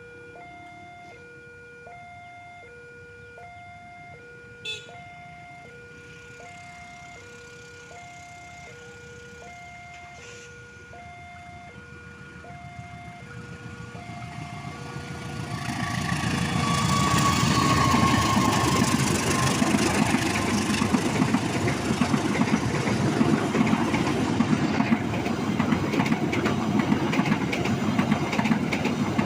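Railway level-crossing warning alarm sounding two alternating tones, about one cycle a second. From about twelve seconds in a train comes up and passes at speed, its rushing rumble building and drowning the alarm.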